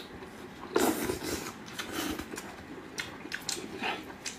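Close-miked eating sounds: wet chewing and lip smacks, with a few sharp smacks scattered through and a cluster of them near the end.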